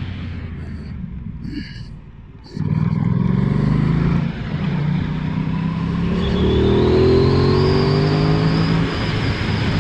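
Aprilia Tuono 660's parallel-twin engine, heard from the rider's position. It runs quietly for about two and a half seconds, then pulls hard and accelerates, with a brief dip about four seconds in and the pitch climbing toward the end.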